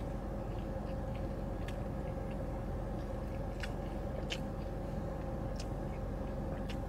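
A mouthful of thin-crust pizza being chewed, with scattered small mouth clicks and smacks, over a steady hum in a car's cabin.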